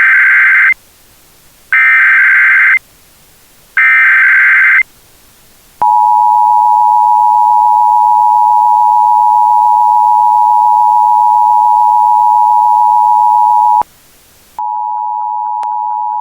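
Emergency Alert System tones: three one-second bursts of the screeching digital SAME header, then the two-tone EAS attention signal (853 and 960 Hz together) held steady for about eight seconds. After a short gap a second, quieter two-tone attention signal starts, with faint regular clicks over it.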